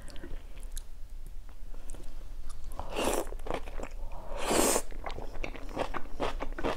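Close-miked eating of Korean black bean noodles (jjajangmyeon): wet chewing with many small mouth clicks, and two louder, longer bursts about three and four and a half seconds in.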